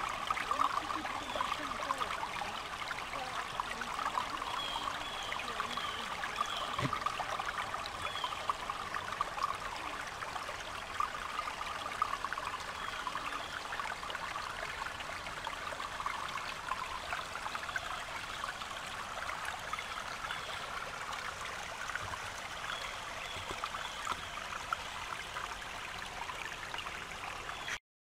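Small woodland stream trickling over rocks, a steady babble of running water that cuts off suddenly near the end.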